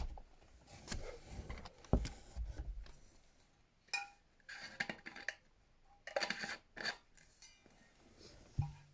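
Items and packaging being handled: scattered light knocks and clinks with short bursts of rustling.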